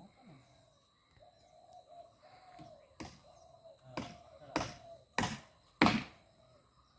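Footsteps on bare ground at a slow walking pace, five thumps in the second half growing louder. Before them a bird, likely a dove, coos faintly.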